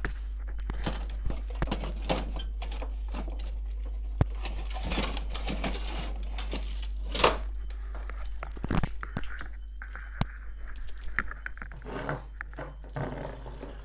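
Hands shifting a small mains transformer and its wires on a wooden workbench: rustling of wire and light clicks and knocks, with a sharper knock about seven seconds in. A steady low hum underneath.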